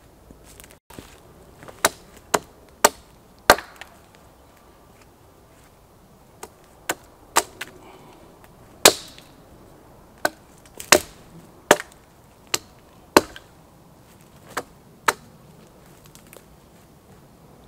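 Axe chopping into wooden poles: sharp single strikes, four in quick succession, a pause, then about a dozen more at irregular intervals of half a second to a second, trimming the straight rods cut for a shelter tripod.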